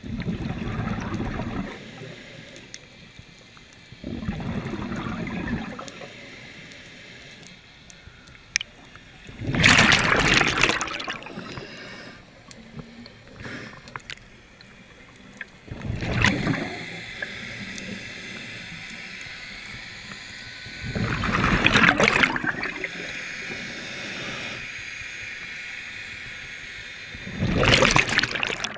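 A scuba diver breathing underwater through a regulator: a loud rush of exhaled bubbles every five or six seconds, with a fainter hiss between breaths.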